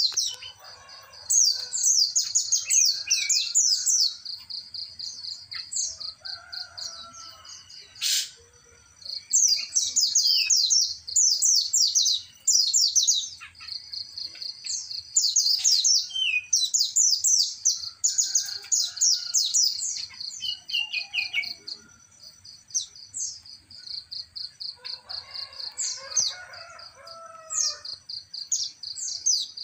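Caged songbirds chirping in rapid, high trilling bursts that come and go, over a steady high-pitched buzz. A single sharp click about eight seconds in.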